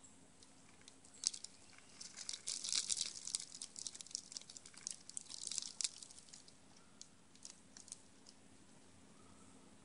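Eastern gray squirrel feeding in a pile of bird seed right at the microphone: a dense run of crackling, crunching clicks starting about a second in, busiest for a few seconds, then thinning to scattered clicks.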